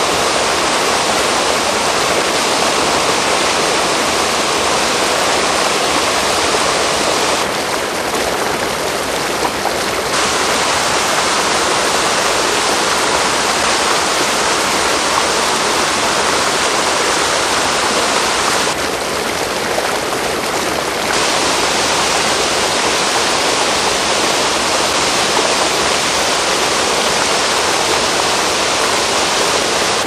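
Water rushing over rock ledges in a woodland creek's waterfalls: a loud, steady rush, with two brief dips in its hiss, about seven and nineteen seconds in.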